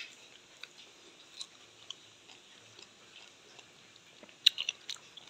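Close-up chewing and biting of fruit pieces, soft and wet, with faint small clicks. A short run of sharper clicks comes near the end and is the loudest part.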